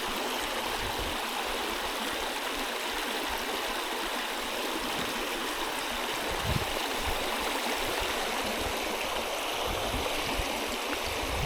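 Small headwater creek running high and muddy from rain and snowmelt: a steady rush of flowing water.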